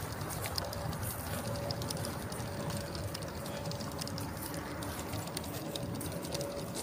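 16mm-scale model locomotive running along 32 mm gauge garden track: a steady rushing noise dotted with quick, light clicks.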